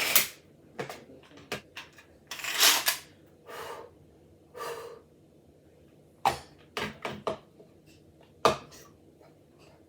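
Irregular clicks, knocks and a few short scraping or rustling sounds of kitchen utensils and dishes being handled.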